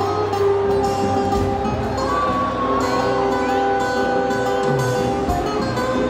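Live band music: electric bass and guitar playing with drums, with long held notes over a steady low end.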